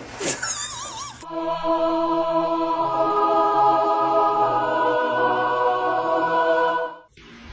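A brief wavering high-pitched sound, then music: one held chord lasting about six seconds that cuts off suddenly near the end.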